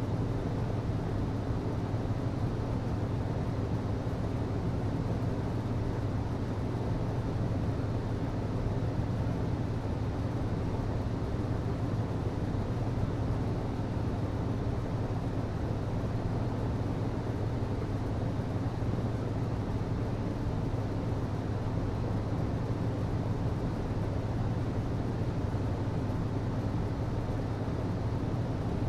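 HVAC system running steadily: a constant low hum with a rush of air over it, unchanging throughout.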